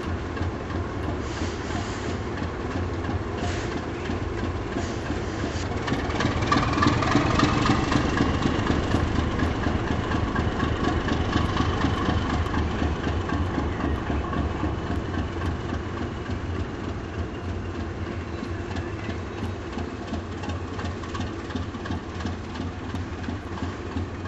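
Class 37 diesel locomotive moving slowly, its English Electric V12 engine running and growing louder about six seconds in with a high whine, then easing off, with wheel clicks over the rail joints and points.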